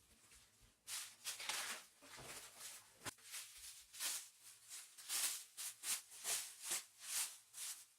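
Plastic packaging crinkling and rustling in irregular short bursts as it is handled, about two to three crackles a second.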